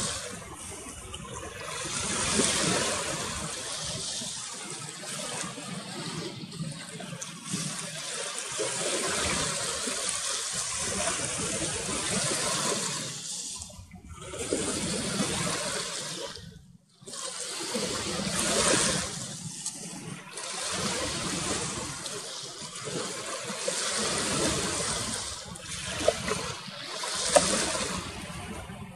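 Small sea waves washing and lapping, the rushing swelling and ebbing every few seconds, with two brief clicks near the end.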